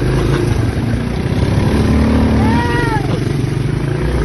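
Linhai 300 ATV engine running steadily under way. A little over two seconds in, a short call-like sound rises and falls in pitch over it.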